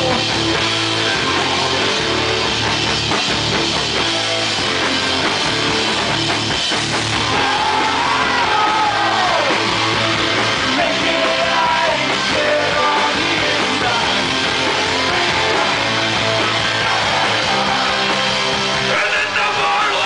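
Heavy rock band playing live at full volume: distorted electric guitars and drums with a singer's vocal line over them.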